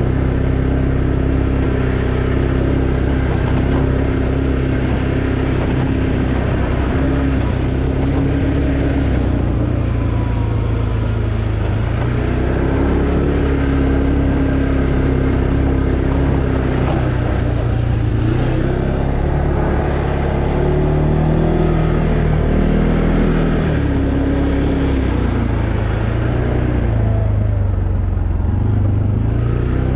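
2020 Arctic Cat Alterra 700 ATV's single-cylinder four-stroke engine running under way, its pitch rising and falling as the throttle changes, over a steady rush of ride noise.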